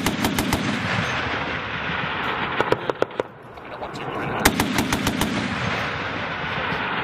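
Gunfire from an AH-1Z Viper attack helicopter's 20 mm three-barrel cannon: two long rasping bursts of about three seconds each, with sharp cracks scattered through them.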